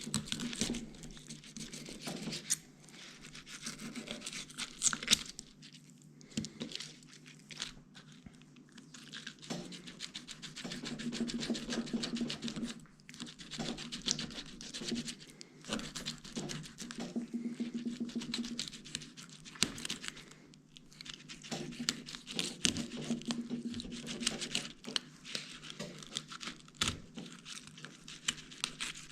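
Fillet knife cutting a skin-on fillet from a scaled bluegill, with irregular scratchy, tearing strokes as the blade works along the bones and through the flesh.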